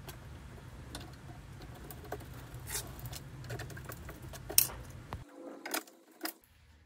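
Scattered light clicks and clinks of metal bolts and washers being handled and pushed by hand into the holes of a foosball table's leg panel, one louder click a little past the middle. A low steady hum runs underneath and stops about five seconds in.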